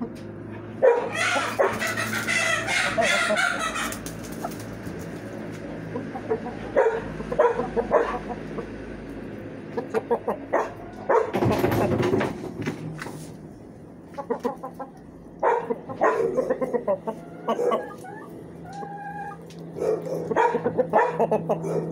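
Aseel gamefowl, a rooster and a hen, clucking in short repeated calls, with louder drawn-out calls about a second in and again about eleven seconds in.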